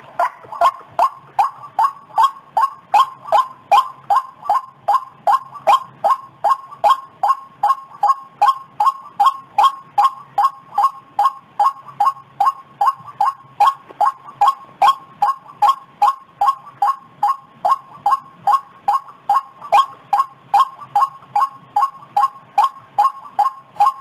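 White-breasted waterhen calling: a loud, monotonous string of short, identical notes repeated about twice a second, the bird's "ruak-ruak" call played as a trapping lure.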